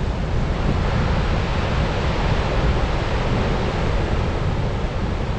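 Steady rushing noise with a heavy, fluttering low rumble: wind buffeting the microphone.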